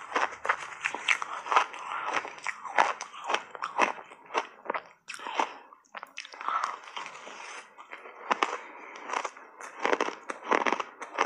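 Shaved ice crunching loudly as it is chewed in big mouthfuls: rapid, dense crunches with a short lull about five seconds in.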